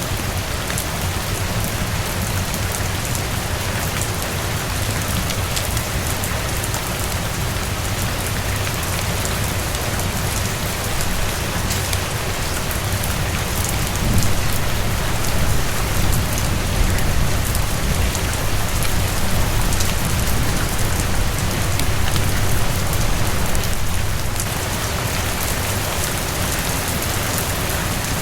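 Steady heavy rain falling on a surface, with dense patter of drops over a continuous low rumble; it swells a little about halfway through, then settles back.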